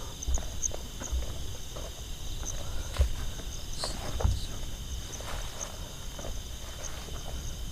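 Night insects chirping in a steady high pulsing drone, with scattered footsteps and rustling knocks close by. The sharpest knocks come about three seconds in and again just after four seconds.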